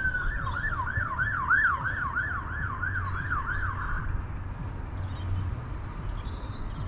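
Police car siren changing from a long wail into a fast yelp, about three rising-and-falling sweeps a second, which stops about four seconds in, over a low rumble.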